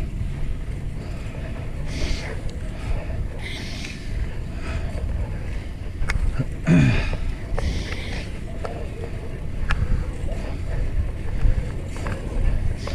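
Wind buffeting the action-camera microphone over the rumble of a fixed-gear bicycle's tyres rolling on asphalt, with a few short hisses and a brief falling tone about seven seconds in.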